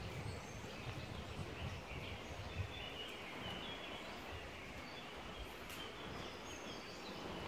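Quiet outdoor ambience with faint, scattered chirps of distant birds.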